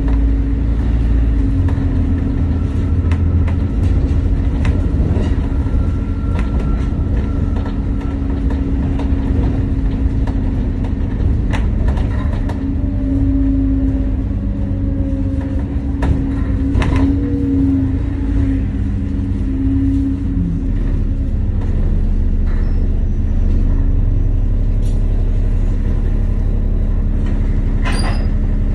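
London double-decker bus heard from inside its upper deck while driving: a steady low engine rumble with a humming tone and scattered rattles and clicks from the bodywork. In the last few seconds the bus has pulled up at the kerb and its engine idles.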